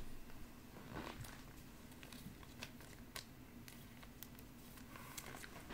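Faint, scattered ticks and soft rustles of trading cards being handled and set down into piles on a table, over a low room hum.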